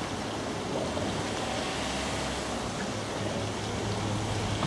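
Steam launch under way: a steady rush of water along the hull with a low, even hum underneath.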